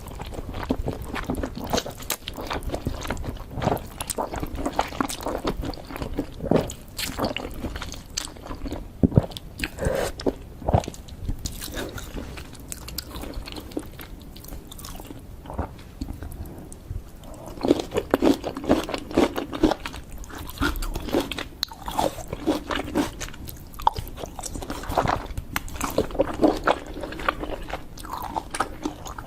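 Close-up eating sounds: a person biting into and chewing crunchy sweets, with irregular crisp crunches and crackles throughout.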